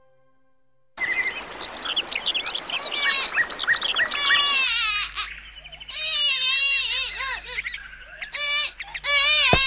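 Birds chirping and twittering over a soft hiss. About five seconds in, a baby starts crying in repeated wavering wails.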